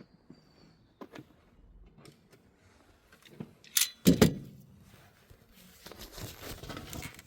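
Hand tools and parts clicking and clinking while a thermostat housing and its stuck hoses are worked loose in a van's engine bay: scattered light clicks, a few loud knocks about four seconds in, then a stretch of scraping and rustling near the end.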